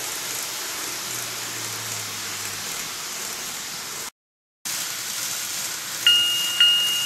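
Steady hiss, broken by a half-second dropout to silence a little past the middle. About a second before the end, a model railway level crossing's electronic warning bell starts, a ringing two-tone ding repeating about twice a second as the crossing activates.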